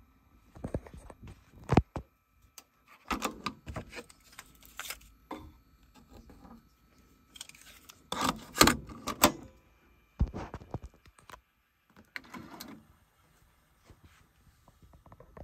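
Plastic clicks, clacks and rattles of a Denon DR-M10 cassette deck being loaded by hand: the cassette door opening, a tape being put into the mechanism, and the door pushed shut. The sharpest clacks come about two seconds in and again around eight to nine seconds in.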